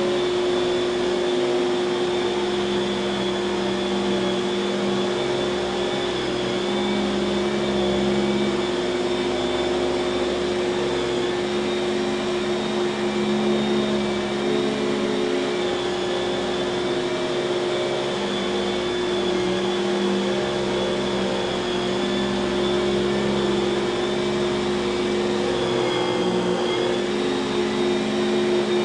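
1995 Kenmore 116.2561290 canister vacuum cleaner running steadily on its dual-stage Lamb motor, a constant whine with a lower hum that wavers and dips now and then.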